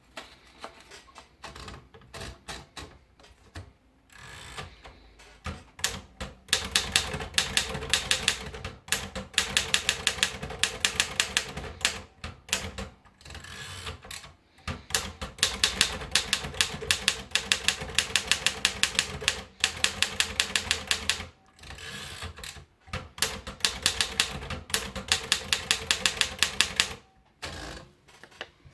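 Torpedo model 30 manual typewriter being typed on: fast runs of sharp key strikes, several a second, broken by short pauses, lighter at first and stopping near the end.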